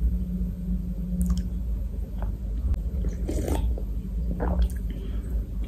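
Close-miked drinking sounds from a can: a few separate gulps and swallows with wet mouth sounds, over a steady low hum.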